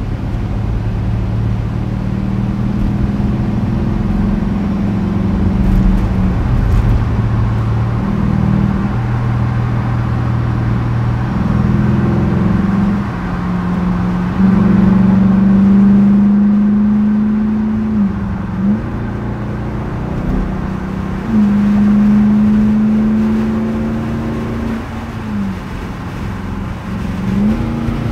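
Straight-piped 2021 Dodge Durango R/T's 5.7-litre HEMI V8 droning while the SUV is driven, holding a steady pitch for several seconds at a time. A few times in the second half the pitch briefly dips and comes back up.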